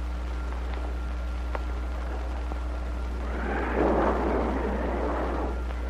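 Steady hum of an old film soundtrack, then a bit over three seconds in a rumble of thunder that swells and fades away over about two seconds.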